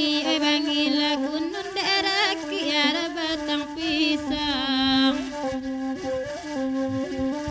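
Saluang, the Minangkabau end-blown bamboo flute, playing a steady low line while a woman sings a dendang with wavering ornamented notes; the voice drops out about five seconds in and the flute carries on with held notes.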